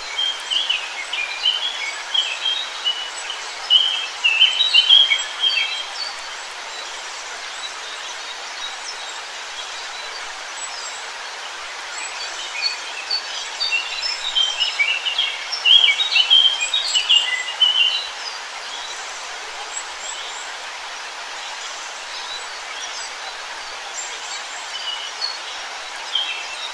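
Songbirds chirping and singing in quick runs over a steady rushing background noise. The birds are busiest in the first few seconds and again around the middle.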